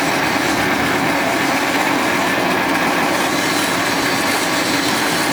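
SKJ280 sawdust pellet press running steadily: a loud, continuous machine noise with a low steady hum.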